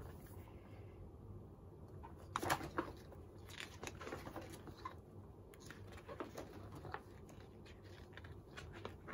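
Thick photobook pages being turned in a metal ring binder: soft paper rustling and sliding with light clicks, the loudest page turn about two and a half seconds in.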